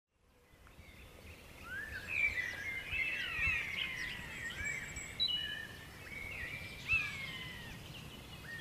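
Woodland birdsong: several songbirds singing and chirping at once in short whistled phrases, over a faint background hiss. It fades in from silence over the first second or two.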